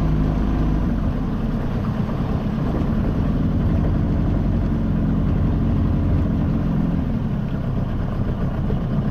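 Small boat's outboard motor running steadily as the boat moves along, a low even engine hum.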